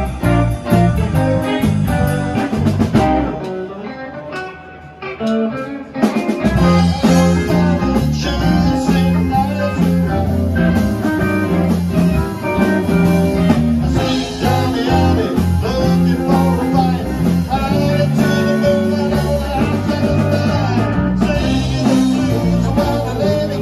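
Live band playing a rockabilly number on electric guitars with bass and drums, without vocals. About three seconds in the bass and drums drop out, leaving thinner guitar, and the full band comes back in about six seconds in.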